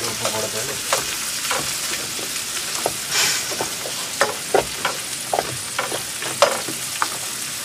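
Sea cucumber pieces with onion sizzling in a frying pan, stirred with a perforated steel skimmer that scrapes and taps against the pan at irregular moments. The sizzle surges louder about three seconds in.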